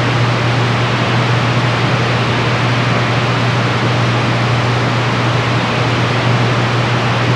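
Open CB radio receiver on 27.025 MHz between transmissions: loud, steady static hiss with a low hum underneath.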